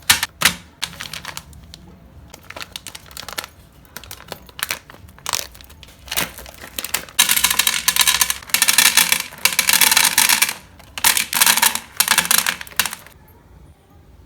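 M&M candies going through a meat grinder: scattered clicks and clatters of the hard candy shells, then from about seven seconds in, dense bursts of crunching and crackling as the candies are crushed, stopping about a second before the end.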